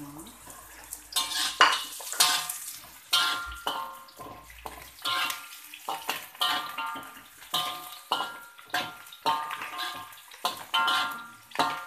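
Metal spatula scraping and knocking against a metal wok while stir-frying onions, ginger and whole spices, the wok ringing with each stroke, about two strokes a second, starting about a second in.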